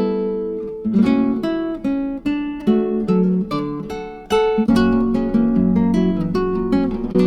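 Background music: acoustic guitar played with plucked and strummed chords.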